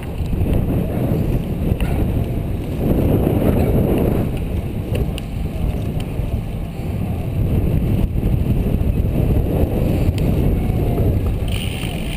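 Loud low wind rumble on the microphone of a camera riding on a road bicycle in a moving pack, growing louder about three seconds in and again in the second half.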